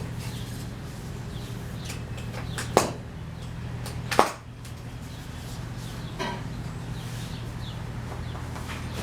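Two sharp clicks about a second and a half apart, then a fainter one a couple of seconds later, over a steady low hum.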